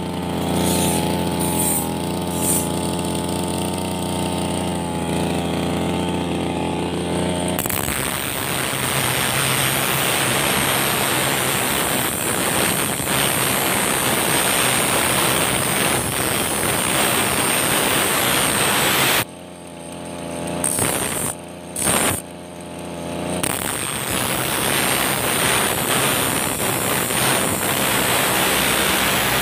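Brush cutter engine running, spinning a grinding disc fitted at its head while a steel cutting blade is held against it and sharpened. The engine runs steadily at first. From about eight seconds in the sound turns louder and rougher with a dense grinding hiss, and it drops away sharply twice around twenty seconds in.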